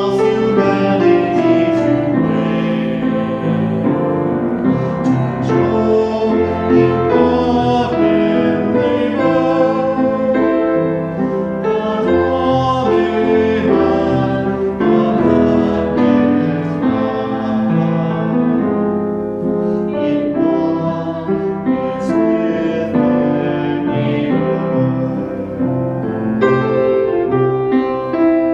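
Piano music: a continuous flow of chords and melody notes.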